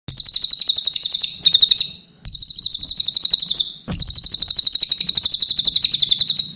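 Cililin songbird singing a rapid, high-pitched trill of about ten repeated notes a second, in three long phrases with short breaks between them.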